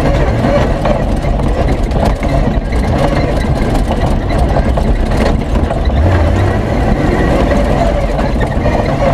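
Off-road racing 4x4's V8 engine running hard under load, heard from inside the cabin, with a steady din of rattles and mud and gravel thrown against the body.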